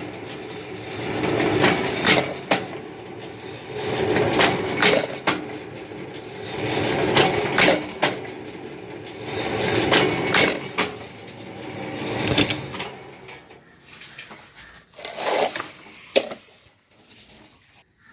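Workshop machinery running in a repeating cycle, a swell of mechanical noise about every three seconds with sharp metallic clanks, dying down over the last few seconds.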